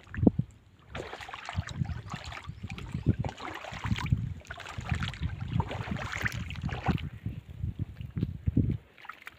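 Wind buffeting the microphone in uneven low rumbles, with shallow seawater splashing and sloshing among rocks. A single loud bump comes about a quarter second in.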